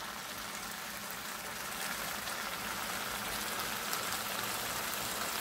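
Bilimbi achar sizzling and bubbling in mustard oil in a frying pan: a steady frying crackle with faint pops. The oil has separated out as the last of the fruit's water cooks off.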